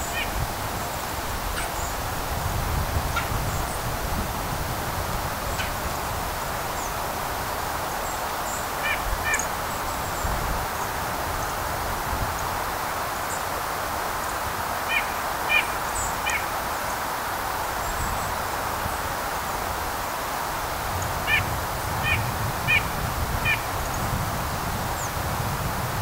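White-breasted nuthatch giving its nasal 'yank' calls in short runs of two to four, each call brief and spaced under a second apart. Under the calls runs a steady hiss of forest ambience with faint high chirps from other birds.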